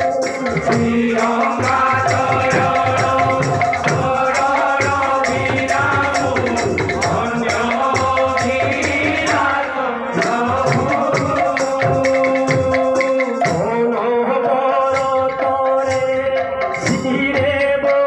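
Odia kirtan music: hand-beaten khol drums and small brass hand cymbals keep a fast, steady rhythm under sustained electronic-keyboard melody lines, with a lead singer chanting into a microphone.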